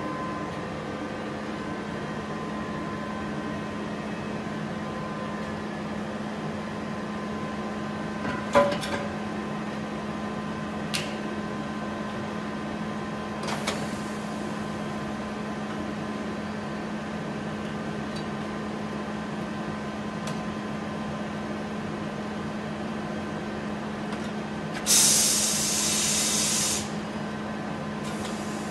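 Steady workshop machine hum, with a few sharp metallic clicks of tools against the alloy wheel on the tyre changer, and about two seconds of loud compressed-air hiss near the end.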